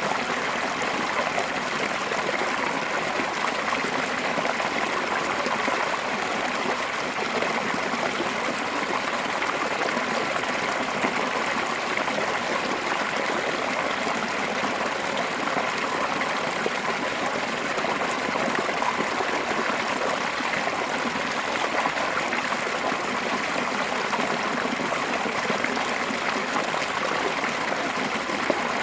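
Mountain stream rushing steadily over a small fall, a continuous even splashing and gurgling of fast-flowing water.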